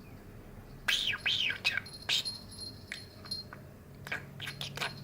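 Male budgerigar chattering: quick high chirps and rising-and-falling warbled notes, loudest from about a second in, then scattered short chirps near the end.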